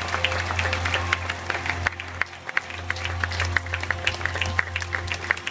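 Audience applauding, a dense run of claps, while the song's music goes on underneath in long held notes.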